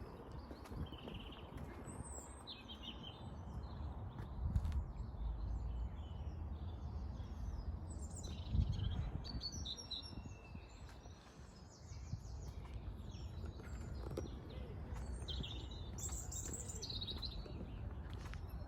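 Small songbirds chirping and trilling on and off over a steady low background rumble, with two louder low thuds about four and a half and eight and a half seconds in.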